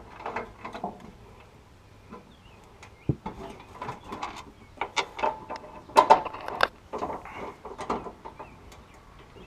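Irregular metallic clanks, clicks and knocks of hand tools and mounting hardware as a pickup truck's gas tank is pushed into place and bolted up from underneath, the loudest knocks about six seconds in.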